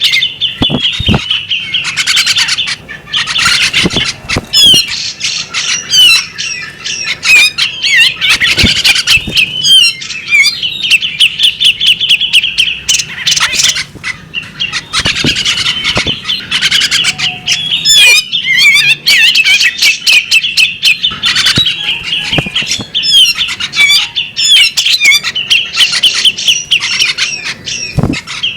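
A female magpie-robin singing continuously: a dense run of rapid chirps, trills and short whistles, with occasional sharp clicks mixed in.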